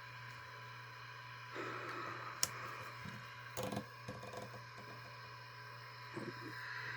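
A few scattered clicks and taps from handling a CB radio's controls, over a steady low electrical hum and hiss. One sharp click comes a little over two seconds in and a small cluster follows about a second later.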